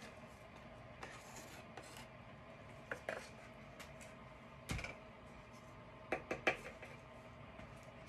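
Scattered clicks and knocks of paint cups and tools being handled and set down while base paint is poured, with one heavier thump about five seconds in and a quick cluster of clicks near the end, over a faint steady hum.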